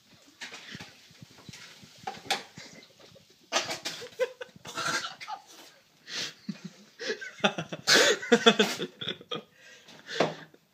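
A person coughing and gagging on a mouthful of dry ground cinnamon. Breathy coughs and puffs come first, then louder, irregular voiced hacking and sputtering from about three and a half seconds in.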